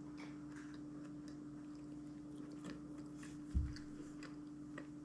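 Faint chewing of a soft glazed donut, with small wet mouth clicks. A single low thump comes about three and a half seconds in.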